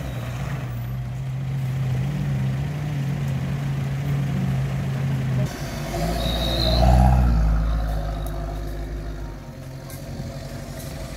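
Off-road SUV engine running under load with a steady note. About six seconds in it surges louder and deeper, peaking a second later, then eases back to a quieter, lower note.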